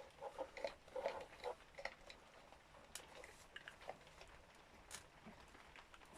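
Faint handling noises: light rustles and scattered small clicks as hands press a glued part into place.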